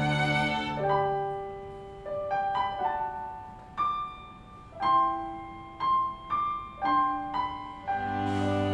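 Piano playing a sparse, quiet passage of separate notes that ring and fade, in a string quartet and piano arrangement. The bowed strings stop about a second in and come back in near the end.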